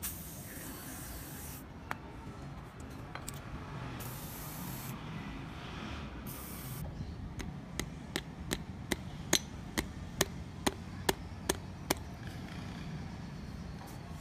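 Aerosol spray can hissing in three short bursts, the first the longest, then a run of about eleven sharp clicks, a little over two a second.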